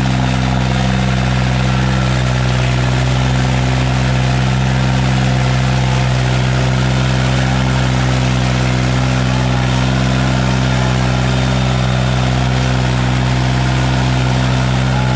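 New Holland 3630 tractor's diesel engine running at a steady speed, with no change in pitch or level.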